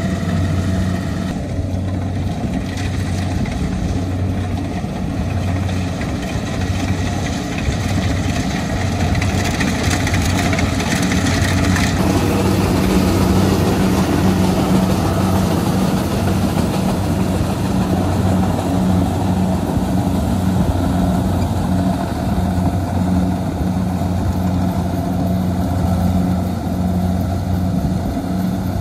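Kubota DC-70 combine harvester's diesel engine running steadily under load as the machine cuts and threshes rice, the engine drone mixed with the noise of the harvesting machinery.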